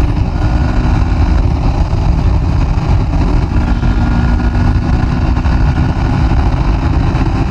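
Moto Morini X-Cape 650's parallel-twin engine running steadily while the motorcycle is ridden at speed, under a heavy rush of wind on the microphone.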